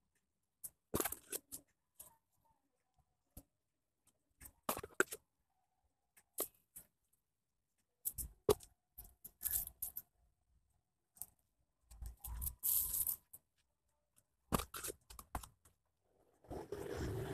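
Plastic putty scraper scraping and dabbing wet wall putty on a rendered pillar, in short separate strokes with silent gaps between.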